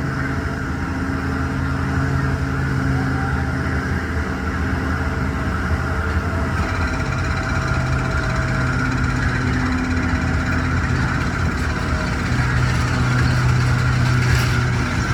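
Hrubetz Hurricane carnival ride machinery running with a steady engine-like drone, its pitch shifting a little every few seconds.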